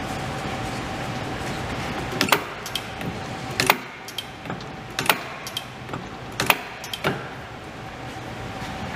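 Hardinge DV-59 six-position endworking turret worked by hand with its capstan handle: a sharp metallic clunk about every second and a half as the slide is run back and the turret indexes, about five in all, with smaller clicks between.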